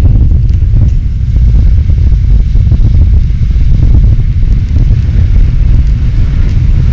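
Wind buffeting the camera microphone on a boat out on open water: a loud, unsteady low rumble.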